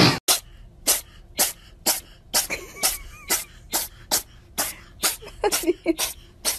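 A Sphynx cat making a fast, regular run of short, sharp bursts of breath, about two a second, with faint voice sounds under them in the second half.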